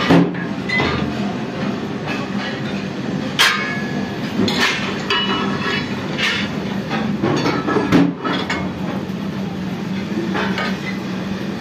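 Metal-turning lathe and workshop machinery running with a steady hum, broken by several sharp metallic clanks and clinks as a steel truck wheel rim is handled and clamped in the lathe chuck.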